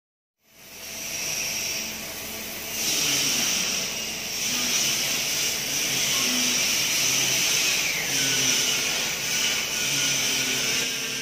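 Workshop noise: a steady airy hiss with a faint low machine hum, starting about half a second in and getting louder about three seconds in.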